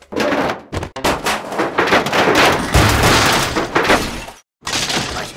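Cartoon scuffle sound effects: a dense, loud clatter of bangs and crashes for about four seconds that cuts off suddenly, then a shorter burst near the end.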